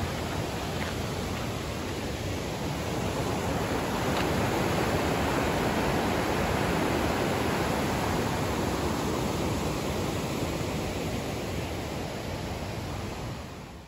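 Water rushing steadily through a concrete spillway channel below a weir, growing louder a few seconds in and fading away at the end.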